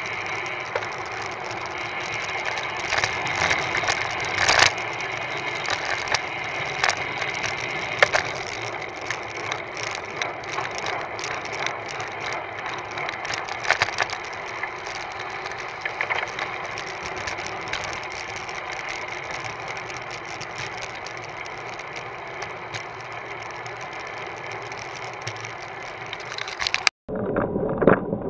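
Riding noise picked up by a camera mounted on a road bike: a steady rush of wind on the microphone and tyre noise on asphalt, with irregular clicks and knocks as the bike and mount jolt over the road surface. Near the end the sound cuts out for a moment and returns duller, as the next ride clip begins.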